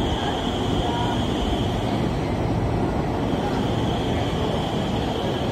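Metro train pulling into an underground station, a steady rumble of wheels and running gear with a high whine that fades about two seconds in and comes back.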